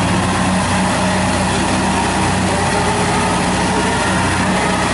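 Diesel engine of heavy farm machinery running steadily, a tractor straining to pull a rice combine harvester out of deep mud.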